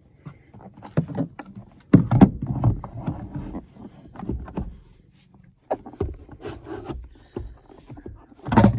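Irregular knocks, bumps and scrapes of a subwoofer enclosure being handled and pushed against its under-seat mount and bracket, with the loudest knocks about two seconds in and near the end.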